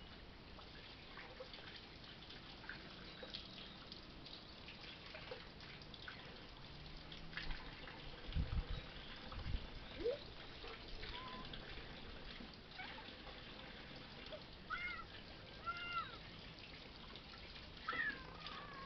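Kittens meowing: three short rising-and-falling meows in the last few seconds, over a faint steady outdoor background. Two low thumps come about halfway through.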